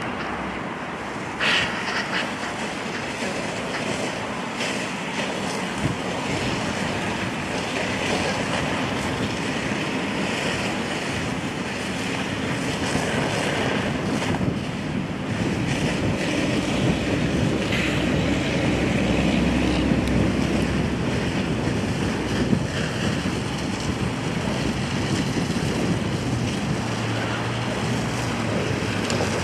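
Fire hoses spraying water streams onto a smouldering garbage pile: a steady rushing hiss, with a low steady hum underneath.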